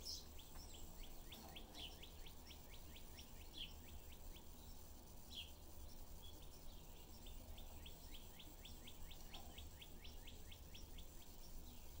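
Budgies chirping softly: two long runs of quick, short, falling chirps at about six a second, with a few single louder chirps among them.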